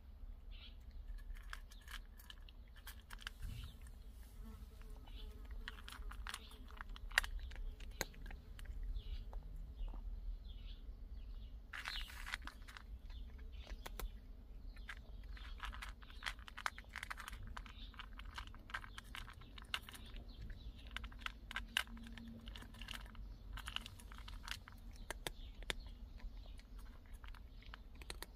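A cat crunching dry kibble from a stainless steel bowl: a steady run of small, crisp crunches, with one sharper click about seven seconds in.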